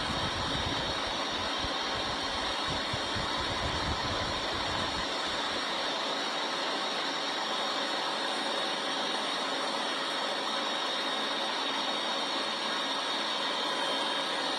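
Police helicopter flying overhead: a steady engine and rotor noise, with an extra low rumble for about the first five seconds.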